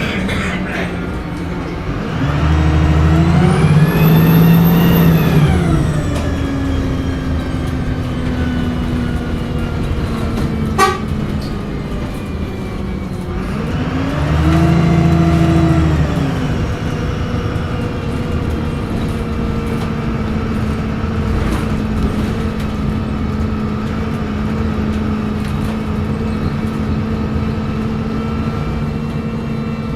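A VDL SB200 single-deck bus engine under load, pulling hard twice, with its turbocharger whining up to a high pitch and falling away each time; the first pull climbs higher. Between the pulls it runs at a steady hum, with one sharp click a little before the middle.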